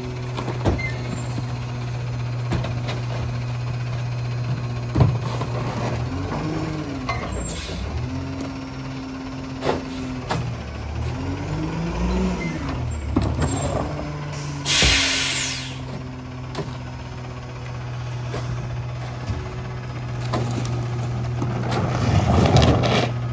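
Rear-loader garbage truck's diesel engine running steadily, revving up and falling back twice. About fifteen seconds in, a short, loud air-brake hiss. Near the end comes a louder stretch of clatter.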